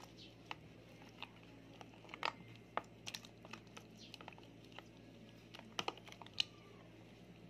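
Bare hands kneading sliced pork belly in its marinade: faint, irregular wet squelches and small clicks, with a few sharper ones around two to three seconds in and near six seconds.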